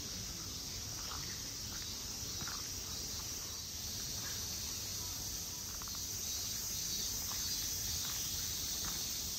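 Outdoor ambience: a steady high insect drone over a low rumble, with faint scattered steps.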